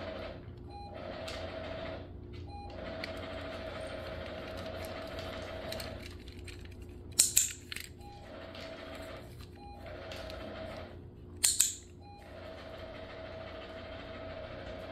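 Dog-training clicker sounding twice, each a sharp double click, about four seconds apart, over a steady mechanical hum with a faint tone that drops out now and then.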